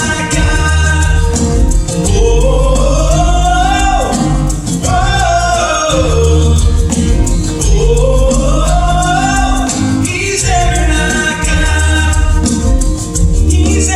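Acoustic band playing live, with a lead voice singing long rising-and-falling phrases over steady bass notes and light hand percussion.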